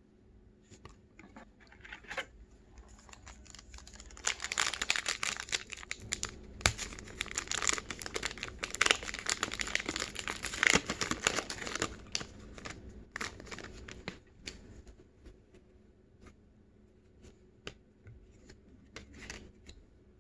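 A foil trading-card pack being torn open, its wrapper crinkling for several seconds from about four seconds in. Then the cards are handled and slid against each other, with scattered light clicks.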